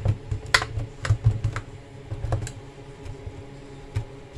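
A kitchen knife cutting boiled cabbage inside a metal cooking pot, the blade clicking against the pot bottom in irregular sharp taps. The taps come thickly in the first couple of seconds, then thin out to a single tap near the end.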